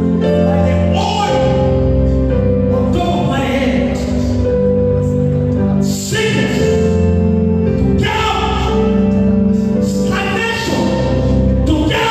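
Gospel music with singing voices over sustained chords and a strong bass line.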